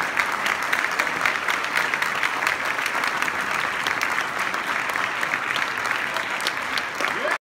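Audience applauding, a steady dense clapping that cuts off abruptly near the end.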